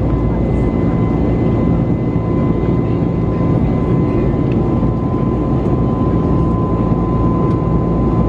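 Airbus A321neo cabin noise in flight: a steady, loud rush of engines and airflow with a constant high whine running through it.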